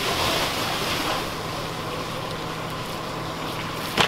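Steady rushing noise over the low hum of a running fire engine, heavier for about the first second, with one sharp knock near the end.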